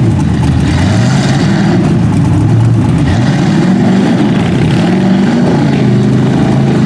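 Lifted square-body Chevrolet pickup on tall mud tires, its engine running hard and revving, with the pitch climbing about three seconds in, as the tires churn through mud.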